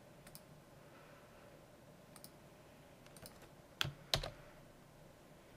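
Computer mouse and keyboard clicks as a web form is filled in: a few faint clicks, then two louder sharp clicks about four seconds in, half a second apart.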